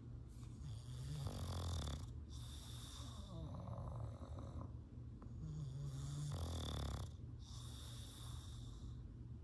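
English bulldog snoring in its sleep: two slow breaths about five seconds apart, each a low snore followed by a long airy hiss.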